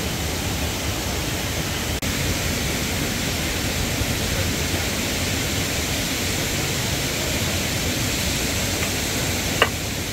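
Steady rush of water from a small cascading forest waterfall, an even hiss with no pauses. A single short, sharp sound cuts through about a second before the end.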